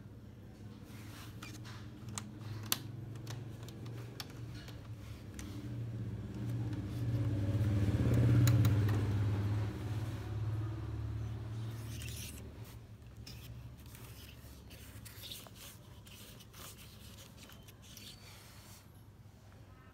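A low mechanical rumble that swells to its loudest about eight seconds in and fades away by about thirteen seconds, with scattered light clicks and knocks.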